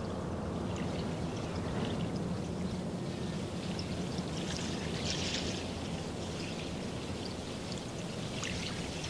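Lake water lapping and washing against the shore: a steady wash with scattered small splashes.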